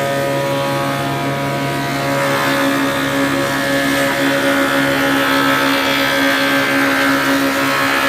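Wood-shaping machine for planks running with a steady motor hum, its sound growing louder and rougher from about two seconds in.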